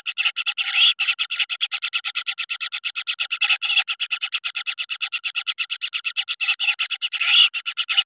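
Kingfisher nestlings giving their continuous begging call in the nest burrow, a fast, even pulsing of about nine notes a second, with a few louder, harsher swells about a second in, near the middle and near the end.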